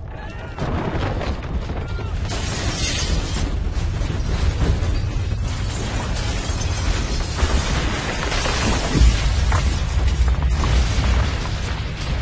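Earthquake re-enactment sound: a deep rumble that swells up within the first second and keeps going, with objects rattling and crashing down over it, heaviest around nine seconds in.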